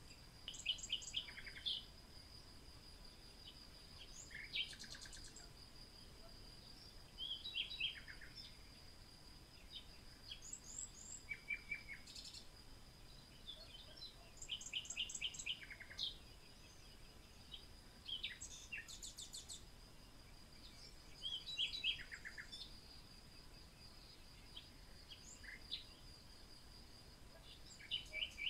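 Birds singing, with short chirps and quick trills coming in bursts every few seconds, over a steady thin high tone.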